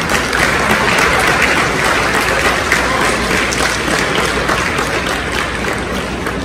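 Audience applauding: dense, sustained clapping from many people that thins toward the end.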